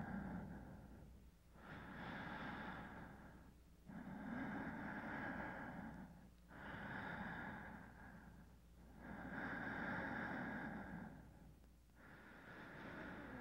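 A person breathing slowly, with long even breaths in and out of about two to three seconds each and short pauses between them.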